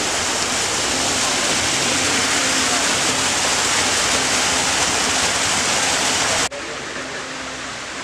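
Small forest waterfall cascading over rocks: a steady, full rushing of water. About six and a half seconds in it cuts off abruptly to a quieter outdoor background.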